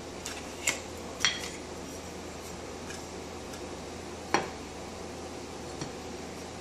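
Backsplash tiles clinking as they are set by hand on the wall: three sharp clinks in the first few seconds and a faint fourth near the end, over a steady background hum.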